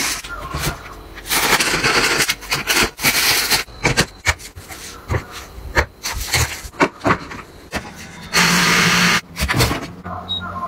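Plastic household items being handled: a plastic bag rustling, and bottles and plastic containers knocking and clicking against one another. A steady rushing noise with a low hum lasts about a second near the end.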